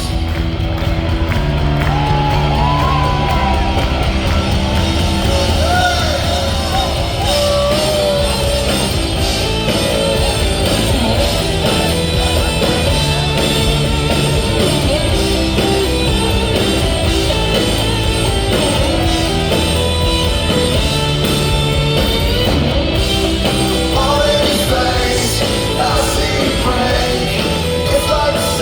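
Live rock band playing in a large hall, with a lead vocal and yells from the crowd.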